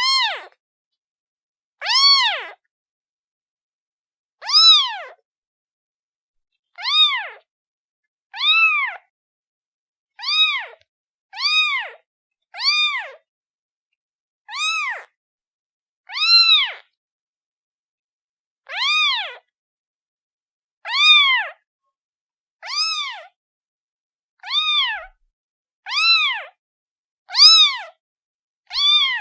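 A domestic kitten meowing over and over: about sixteen short, high-pitched meows, each rising and then falling in pitch, with a pause of one to two seconds between them.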